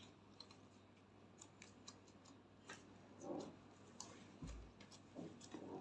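Faint, irregular little clicks and pops of glitter slime being kneaded and pressed by hand.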